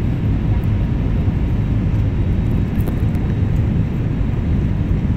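Steady roar of an Airbus A320-family jetliner's engines and rushing air, heard from inside the cabin beside the wing while the plane climbs out after takeoff. The sound is deep and even, with no change in pitch.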